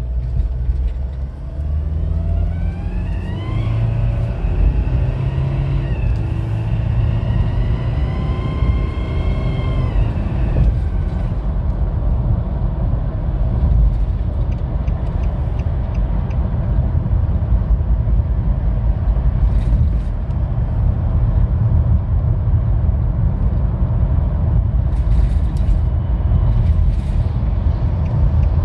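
Nissan Pathfinder 2.5 dCi four-cylinder turbodiesel with a high squeak that rises in pitch as the throttle is pressed, twice, and fades as the revs drop about ten seconds in; after that the engine idles steadily. The squeak comes on whenever the throttle is hit.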